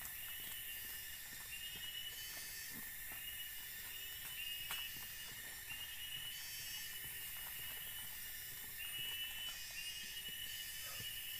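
Tropical forest ambience: a steady high insect drone, with a short high call repeated over and over, and faint taps and rustles from clearing the ground by hand.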